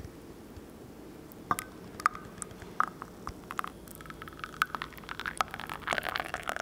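Utensils clinking and scraping against dishes in a kitchen: irregular sharp clicks and short ringing clinks over a steady low hiss, growing busier in the last couple of seconds.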